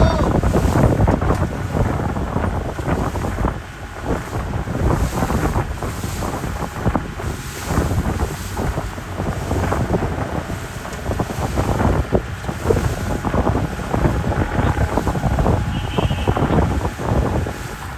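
Strong wind buffeting the microphone aboard a moving speedboat, with the boat and rushing water underneath as a steady noise.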